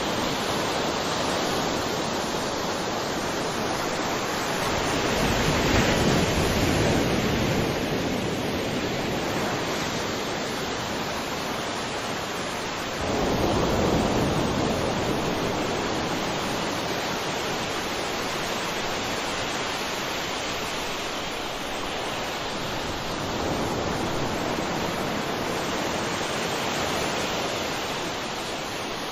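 Sea waves washing onto a shore: a steady rush of surf that swells as waves break, about five seconds in, again near the middle, and more softly later on.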